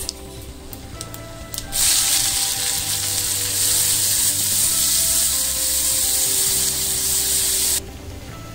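Chopped shallots sizzling loudly in hot gingelly (sesame) oil in an iron kadai, stirred with a wooden spatula. The sizzle starts suddenly about two seconds in and cuts off suddenly near the end.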